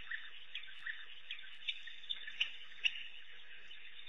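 Steady high hiss of a night insect chorus, with about eight short, sharp high chirps scattered through the first three seconds.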